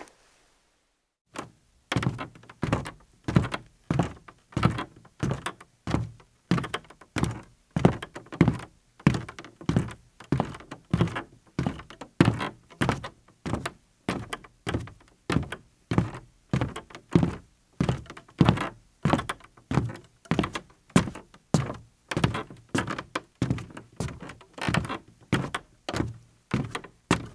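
Evenly spaced percussive thuds, about two a second, beginning after a short silence about two seconds in.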